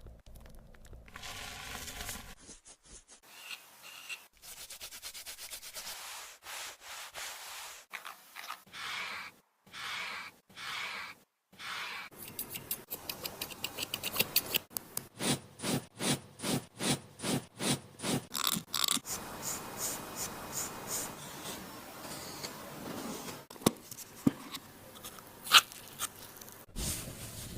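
Pet grooming brush rubbing and scraping in repeated strokes, about two strokes a second through the middle part, with a couple of sharp clicks near the end.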